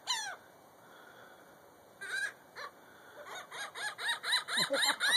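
Laughing gulls calling: one sharp, falling call at the start, a couple of single calls about two seconds in, then a quickening run of short arched calls, about four a second, growing louder toward the end.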